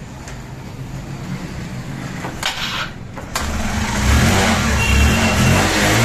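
Honda Dream Yuga's single-cylinder engine being started: cranking noise with a few clicks, then the engine catches about three and a half seconds in and runs, getting louder. It starts now that a broken wire in the wiring harness has been rejoined.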